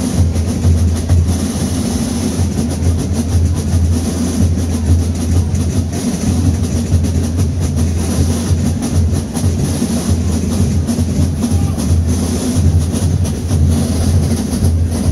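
Carnival drums playing a steady, driving dance rhythm, with deep bass drums giving a continuous rumble and the noise of a dense crowd mixed in.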